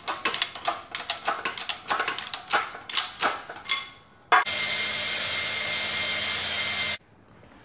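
Quick metallic clicking and clinking as a hydraulic bench press is worked to press bushes into a motorcycle gearbox output gear. About four seconds in, a cordless drill starts and runs steadily at full speed, drilling the oil holes in the bushes, then cuts off suddenly.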